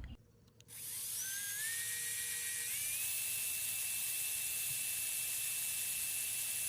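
Makita electric drill spinning up with a high whine that climbs in pitch, then holds a steady speed while drilling out a small rivet on a diecast model truck.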